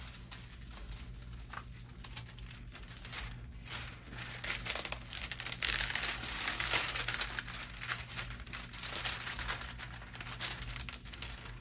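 The clear plastic cover film of a diamond painting canvas crinkling as it is lifted and handled, with hands rubbing and smoothing the canvas beneath. The rustling is loudest around the middle.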